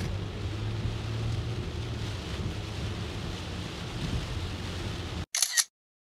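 Heavy rain on a moving car, heard from inside the cabin: a steady hiss of rain over a low road and engine hum. About five seconds in it cuts off abruptly, and a short camera-shutter click follows.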